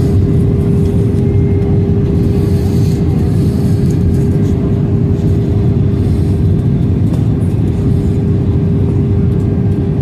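Jet airliner cabin noise in flight: a steady, loud rumble of engines and airflow with a constant hum through it.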